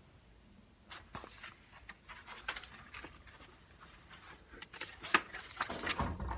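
Paper rustling and soft knocks of a picture book being handled and its pages turned, in short irregular bursts.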